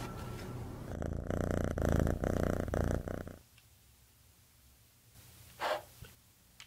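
Domestic cat purring, a steady fine pulsing lasting about three seconds before it stops. A single brief, higher sound comes near the end.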